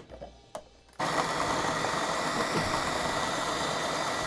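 A couple of small clicks, then about a second in a food processor starts and runs steadily, its blade chopping a mix of nut crumbs, desiccated coconut and soaked dates into a sticky paste, with a steady high whine over the churning.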